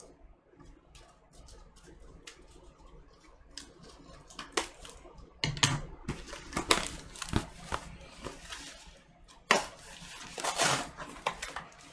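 Cardboard vinyl-record mailer being cut open with scissors and unpacked. Faint snips and ticks come first, then cardboard and paper rustle and tear, with sharp knocks about five and a half and nine and a half seconds in.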